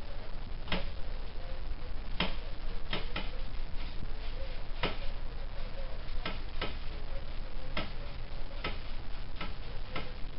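Ratchet wrench turned in short, cramped strokes on a muffler mounting bolt, giving single sharp clicks about once a second at an uneven pace.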